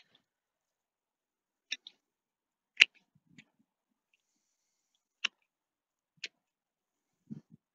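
Hand-held bypass pruners snipping dead rose canes: about six sharp clicks at irregular intervals, the loudest about three seconds in, with a couple of soft low knocks near the end.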